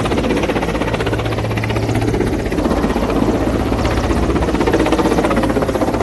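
Helicopter running nearby: a loud, steady engine and rotor noise with a constant low hum and a fast, even pulsing.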